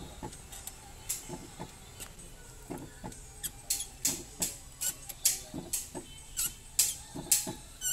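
Clutch slave cylinder being bled: a string of short, irregular clicks and squeaks from the wrench working the bleeder screw while the clutch pedal is pumped. They come faster and louder in the second half.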